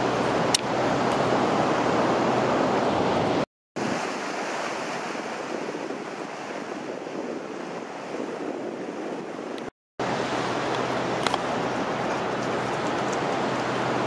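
Steady wash of surf on the shore mixed with wind noise. It cuts out completely for a moment twice, about three and a half and ten seconds in.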